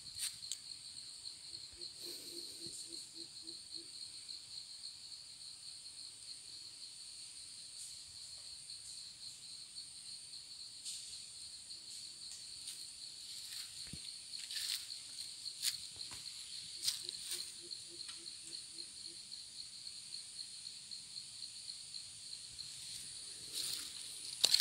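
Steady high-pitched insect chorus in dry scrub, a continuous shrill drone. Scattered crackles of footsteps on dry leaves and twigs, more of them in the second half, and twice a faint low rapid pulsing call.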